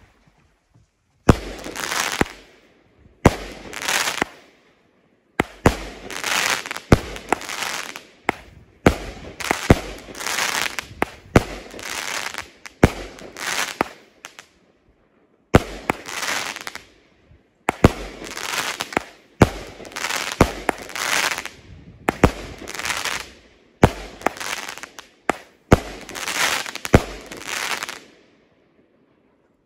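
Great Grizzly Hopper Dropper, a 200-gram 16-shot consumer firework cake, firing its shots one after another about every one and a half to two seconds. Each shot is a sharp bang trailed by about a second of noisy hiss, with two short pauses in the sequence, until the cake finishes near the end.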